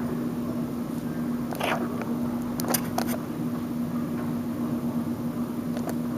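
A steady low mechanical hum, with a brief rustle about two seconds in and a few sharp clicks around three seconds in and near the end.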